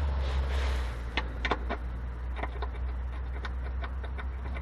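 Light, irregular metallic clicks and taps of a socket being fitted onto a bolt head to test its size, over a steady low hum.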